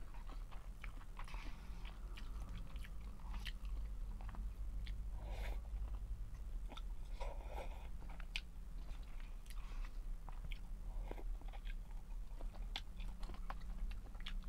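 Close-up chewing and mouth smacks of someone eating instant cup noodles with rice from a plastic spoon, many short sharp clicks throughout. A steady low hum runs underneath.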